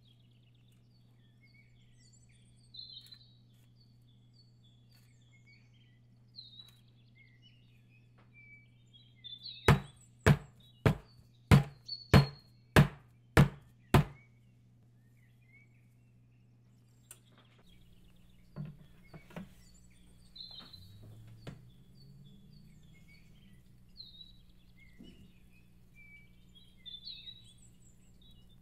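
Songbirds chirping and calling steadily from a background nature recording. About a third of the way in comes a run of eight sharp knocks, about three every two seconds: a filled cake pan being tapped down on the counter to settle the batter.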